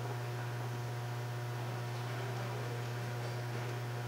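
Steady low electrical hum with a faint hiss, unchanging throughout; no distinct mechanical sound.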